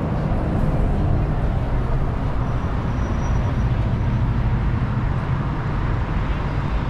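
Road traffic on a city street: a steady low rumble of vehicle engines running.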